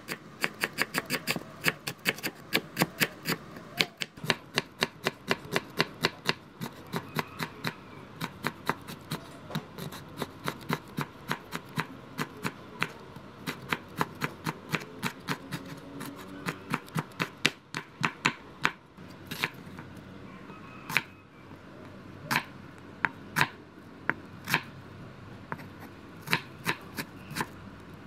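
Cleaver chopping vegetables (carrot, green beans, onion) on a wooden cutting board: rapid, even knocks of the blade on the board at about four to five a second, thinning out in the second half to single chops about a second apart.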